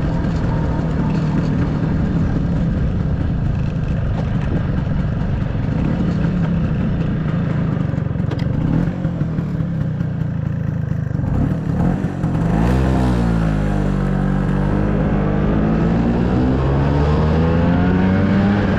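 1997 Vespa P200E scooter's 200 cc two-stroke single-cylinder engine running under way. About twelve seconds in, the engine note drops, then climbs steadily again as the engine revs up.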